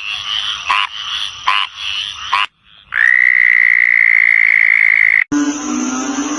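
Frog calls from three different frogs in turn, each clip cut off sharply: first short calls repeating about once a second, then one steady high-pitched call held for about two seconds, then a lower-pitched call starting near the end.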